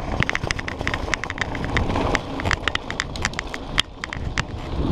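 Mountain bike rolling over a dirt trail: a steady low rumble from the tyres, with many irregular clicks and rattles from the bike jolting over rough ground.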